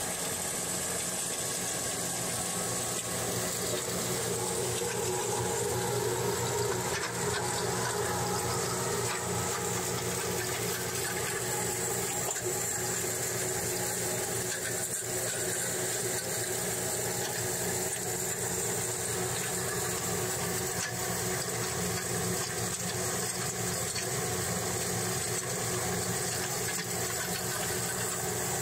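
A small gold ore milling plant running steadily: a continuous mechanical hum from its motors and drives, with water and slurry running through the spiral classifier.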